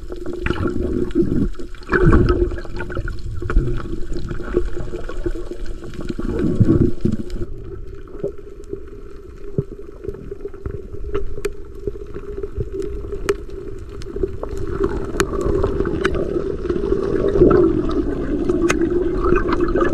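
Muffled water noise picked up by a submerged camera: rushing and gurgling as the diver swims, over a steady low hum. Scattered sharp clicks come through in the second half.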